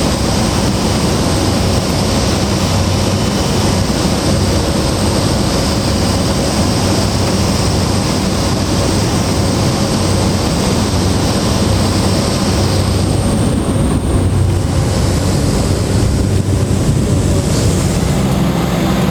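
Loud, steady engine drone with a low hum, its high whine dropping away about two-thirds of the way through.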